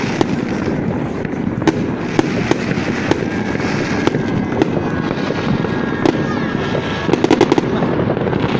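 Fireworks display: a continuous rumble of overlapping booms with sharp cracks scattered through it, and a quick run of rapid cracks near the end.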